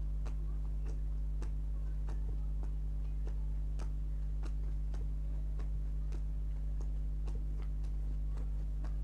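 Playing cards laid down one after another onto a pile, a short light click a bit under twice a second in a steady rhythm, over a constant low hum.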